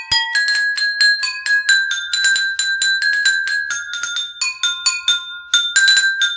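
Ringtone melody played in a high, bell-like chime tone: a quick, continuous run of struck notes with no voice or bass.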